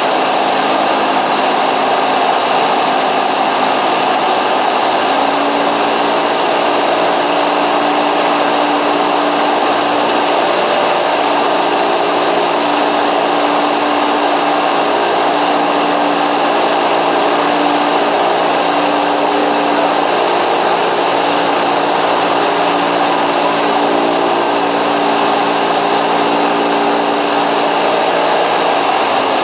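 Cessna 172's piston engine and propeller running steadily at an even, loud drone.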